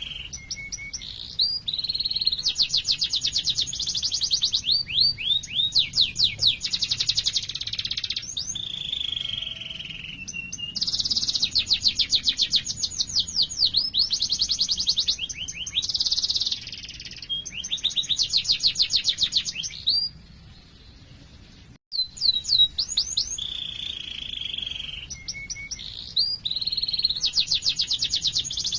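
Domestic canary singing a long rolling song of fast, repeated trills and sweeping chip notes (the 'cuit cuit' phrases). The song breaks off for about two seconds roughly two-thirds of the way through, then starts again.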